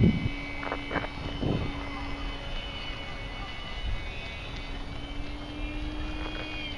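Electric motor and propeller of a ParkZone P-47 RC plane whining steadily overhead in flight.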